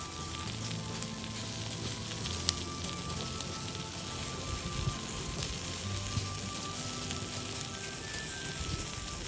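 Cedar and cypress bark burning in an incineration basket, crackling and hissing steadily, with sharp pops about two and a half and five and a half seconds in.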